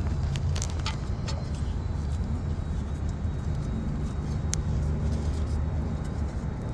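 A steady low rumble with a few light clicks and taps.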